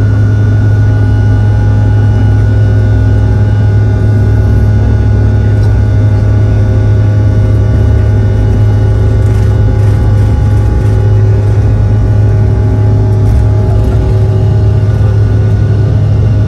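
Cabin sound of a Bombardier CRJ-900 on its takeoff roll: the twin rear-mounted General Electric CF34 turbofans at takeoff power make a loud, steady drone with a deep hum and several steady whine tones, over the rumble of the wheels on the runway.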